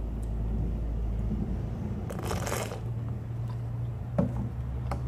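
A plastic bottle of witch hazel toner being handled on a tabletop: a brief rustle about two seconds in, then a couple of light knocks near the end as the bottle is picked up. A steady low hum sits under it all.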